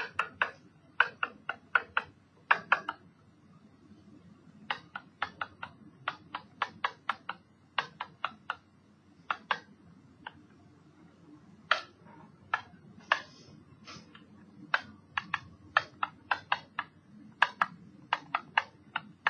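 A stylus tapping and clicking against a tablet or touchscreen surface during handwriting: an irregular run of sharp little taps, several a second with short pauses, over a faint steady low hum.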